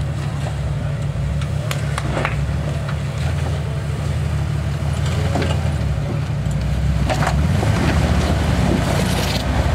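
Jeep Wrangler's engine running at low revs as it crawls over boulders, getting a little louder in the last few seconds. A few short sharp knocks sound over it.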